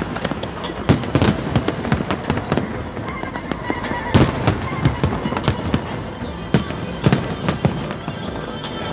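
Fireworks display: a continual run of shell bangs and crackles, with the sharpest bangs about a second, four seconds and seven seconds in, over crowd chatter.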